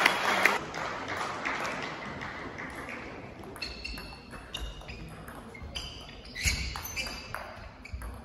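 Table tennis ball clicking back and forth in a rally from about three and a half seconds in: quick sharp pings off the bats and the table, several a second, ringing in a large sports hall. A burst of crowd noise dies away in the first second.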